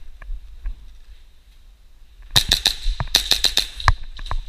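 Airsoft gunfire: a quiet stretch with a few faint clicks, then, about two and a half seconds in, a rapid string of about a dozen sharp pops over a second and a half.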